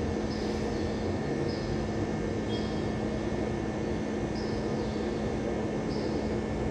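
Steady hum and whir of an electric wall fan, with a constant low tone and a faint short hiss that comes back about every one to one and a half seconds.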